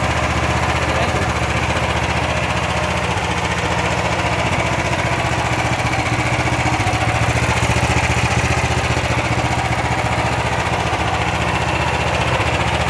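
GX390-type single-cylinder four-stroke petrol engine driving a 4-inch water pump, running steadily at an even speed.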